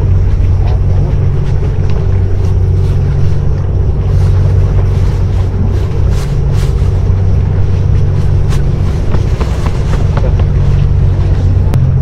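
Steady low rumble of a boat's engine running offshore, its pitch shifting slightly near the end, with wind on the microphone and a few faint clicks.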